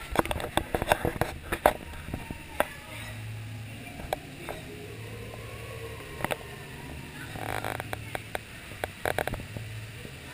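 Round water-ride boat drifting through a channel: a steady low hum with irregular knocks and clatters, thickest in the first two seconds and again about seven to nine seconds in.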